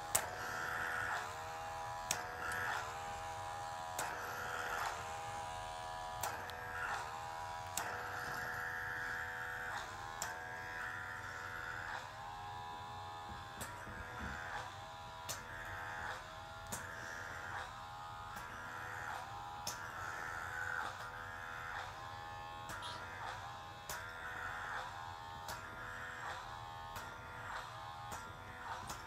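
Small electric motor of a handheld facial pore vacuum buzzing steadily as it is worked over the skin, its pitch dipping and recovering every second or two, with scattered light clicks.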